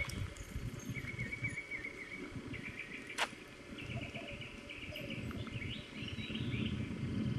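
A small bird singing runs of quick, repeated chirps over a low rumbling noise, with one sharp click about three seconds in.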